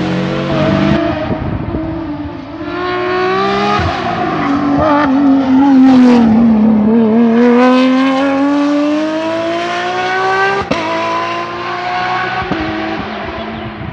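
Porsche 911 rally car's flat-six engine as the car goes through a bend. The engine note drops as it slows into the corner, then climbs steadily as it accelerates away, with a sharp crack at a gear change about two-thirds of the way in, then fades.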